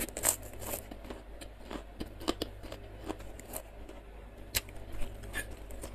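Close-miked chewing of a mouthful of tahu gejrot: soft wet mouth clicks and smacks, thick in the first second, then sparse single clicks.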